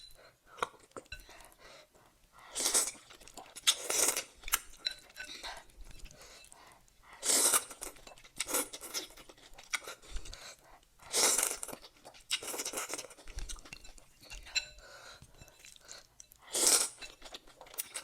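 Close-up eating sounds from a bowl of spicy ramen with mushrooms and cucumber: chewing and crunching, with a louder burst every few seconds.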